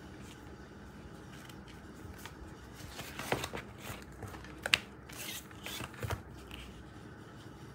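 Clear plastic cover and fabric journal cover being handled and slipped apart: rustling and rubbing with a few sharp clicks, mostly between three and six seconds in, the loudest click about halfway through.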